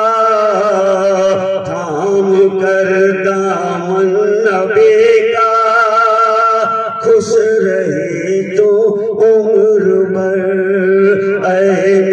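A man's voice chanting a nazm to a drawn-out melody through a microphone, holding long wavering notes.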